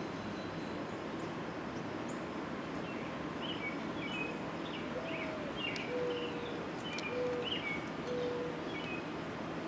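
Steady outdoor background hum with songbirds chirping. About halfway through come four low, even calls, the first gliding down in pitch and the next three held level.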